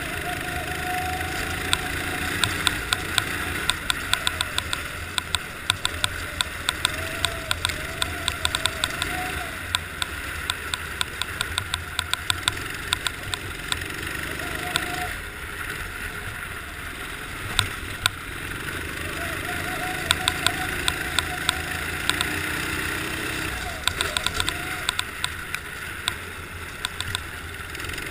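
Racing kart engine heard onboard, revving up and dropping back again and again through the corners, with many sharp clicks throughout.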